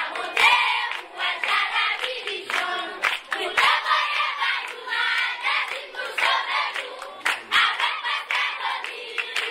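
A group of people singing together while clapping their hands, with many sharp claps over the voices.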